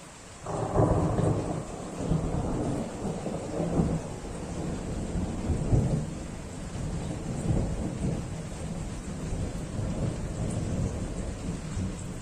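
Thunder breaks suddenly about half a second in and rolls on as a long, uneven rumble with several swells, slowly easing, over steady rain.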